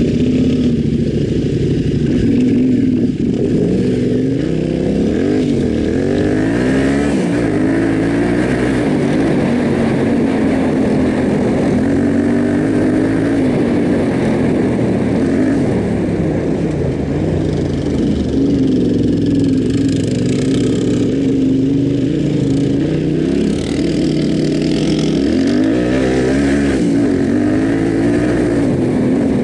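Yamaha Ténéré 700's parallel-twin engine under way off-road, the revs rising and falling repeatedly as the rider works the throttle.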